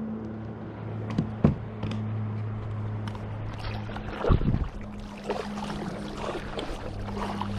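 Kayak moving on the water with a steady low hum. A couple of sharp knocks on the hull come about a second and a half in, and a heavier thump about four seconds in. After that, water splashes and trickles along the hull.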